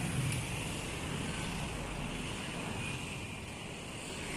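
Steady outdoor background noise: road traffic and wind on the microphone.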